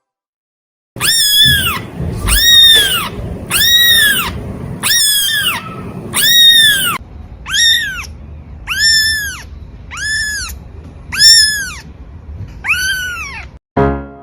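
A cat meowing about ten times in a steady series, each meow high and rising then falling in pitch.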